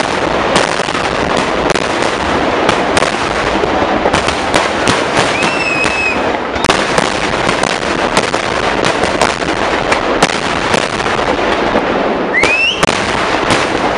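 A temple fireworks barrage of large firecrackers: a dense, continuous crackling rush with many sharp bangs in quick succession. A short whistling tone sounds near the middle, and another rising one near the end.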